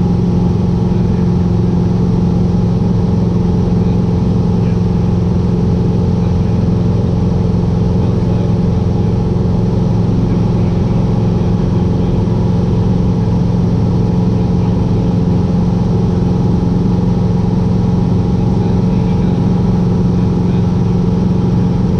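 Cessna 150's Continental O-200 four-cylinder engine and propeller running steadily in cruise flight, heard from inside the cabin.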